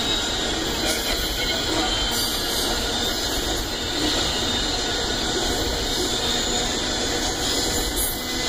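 Amtrak Auto Train's bilevel auto-carrier cars rolling past: a steady rush of wheels on rail.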